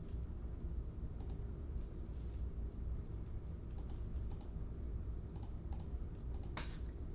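Scattered computer keyboard keystrokes and clicks, irregular and sparse, over a steady low hum.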